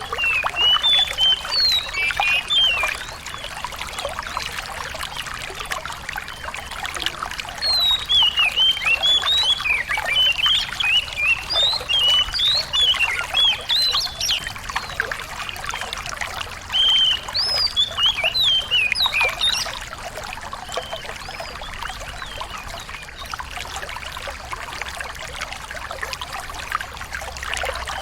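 A small songbird singing fast, sharp twittering phrases of chirps and trills in three stretches, over water trickling steadily.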